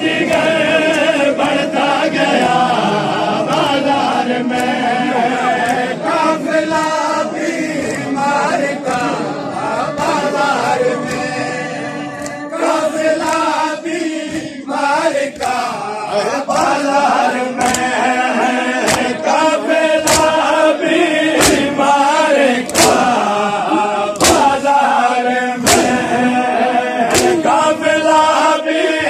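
Men's voices chanting a Shia mourning lament (noha) together, with sharp slaps of hands on bare chests in unison (matam), about once a second from about halfway in.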